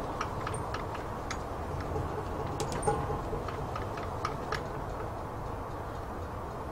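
Steady low outdoor rumble with scattered light ticks and clicks at irregular spacing, and a couple of brief high chirps about half a second and three seconds in.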